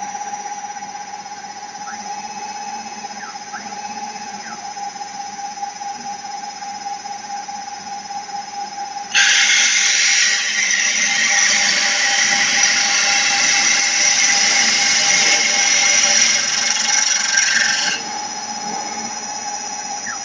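Stone CNC router's spindle motor running with a steady whine. About nine seconds in, its core drill bit cuts into the stone slab with a loud grinding hiss for about nine seconds, then stops while the spindle keeps running.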